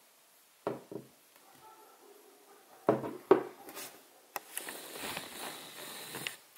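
Knocks and clicks of a glass perfume bottle being handled and set down on a wooden tabletop, the sharpest pair about three seconds in, followed by a couple of seconds of scraping and rustling.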